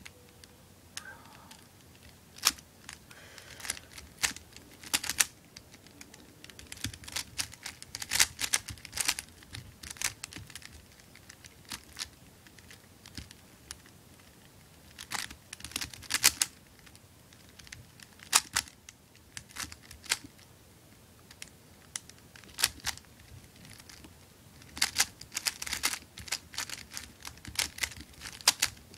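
Non-ridged Dayan Megaminx puzzle being turned by hand during a solve: irregular bursts of quick plastic clicks and clacks as its faces are rotated, with short pauses between bursts.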